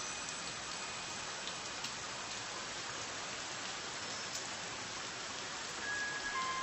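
Steady rain falling, an even patter of many drops without a break.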